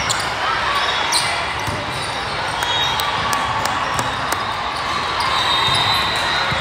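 Busy indoor volleyball hall during a rally: sharp ball contacts and bounces from this and neighbouring courts over a constant wash of voices, with a few high squeaks.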